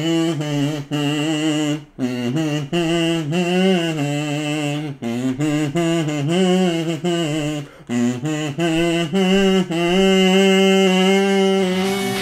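Kazoo playing an anime opening theme's melody: a buzzy line of quick, shifting notes broken by a few short breaks, with a long held note near the end.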